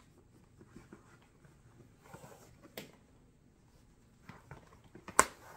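Smooth leather shoulder strap of a Mark Cross Madeline 30 handbag being fed through its metal buckle: faint scratching and rubbing of leather, with a few light clicks and a sharper click near the end.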